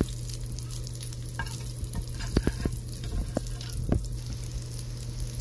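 Bacon sizzling in hot fat in an aluminium pan, with several sharp clicks and scrapes of a metal spatula against the pan, mostly in the middle of the stretch, as the cooked strips are lifted out.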